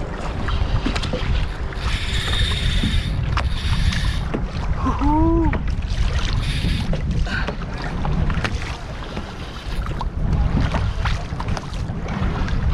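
Wind rumbling on the camera microphone over water noise around a fishing kayak, with two short hissing bursts about two and three and a half seconds in.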